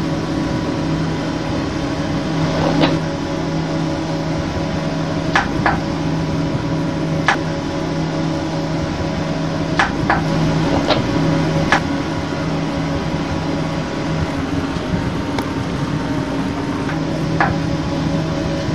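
A steady mechanical hum with several fixed pitches, broken by about nine sharp clicks or knocks at irregular intervals.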